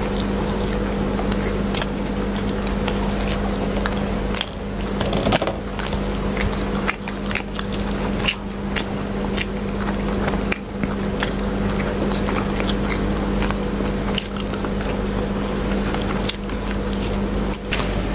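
Close-miked chewing and biting of chicken kabab, with small scattered clicks of forks on food and paper plates, over a steady background hum.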